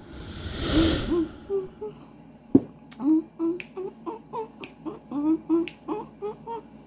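A whoosh at the start, then finger snaps about every half second under a short wordless melody of bending, pitched notes.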